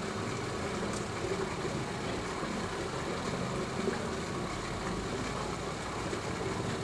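A steady low mechanical hum with no distinct events.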